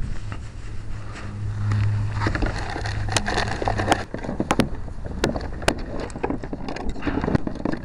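Knocks and clatter of gear being handled inside a fishing kayak: a run of sharp knocks through the second half, over wind noise on the microphone and a low steady hum in the first few seconds.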